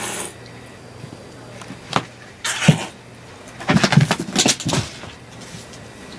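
Tabby-and-white domestic cat hissing at a cat-teaser toy in play, a threat hiss: one ending at the very start, another about two and a half seconds in, and a rough flurry of hissing around four seconds as the cat jumps up.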